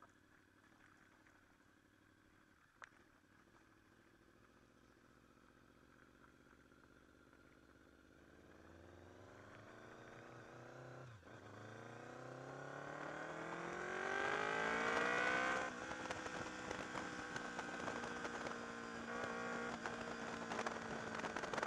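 Honda VFR's V4 engine, faint and low at first, then revving up in a long rise in pitch with a brief dip partway. About three-quarters through it drops off sharply, then runs steadily at cruising revs.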